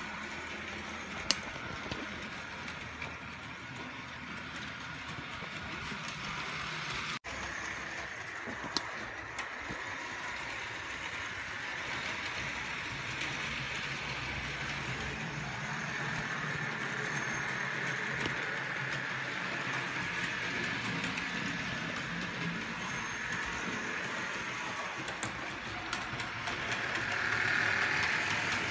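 Model train running on a DC layout: the steady whir of the locomotive's small electric motor and the rumble of wagon wheels on the track, with a sharp click about a second in, getting louder near the end as the train comes close.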